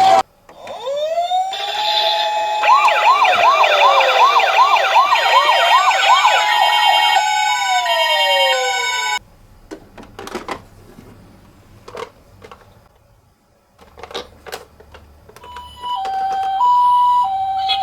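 Electronic sirens of toy ambulance minicars. A siren rises into a wail, then warbles quickly up and down for several seconds, falls, and cuts off suddenly about nine seconds in. A few seconds of light clicks and knocks follow. Near the end a two-note high-low ambulance siren starts.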